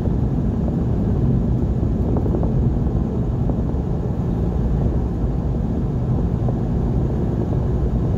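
Steady low drone of engine and tyre noise, heard from inside a vehicle's cab at highway speed.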